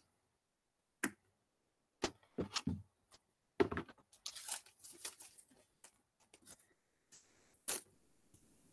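Faint handling sounds of tape being pulled and torn: a few light clicks, then a short stretch of rustling and tearing, and one more brief tear near the end.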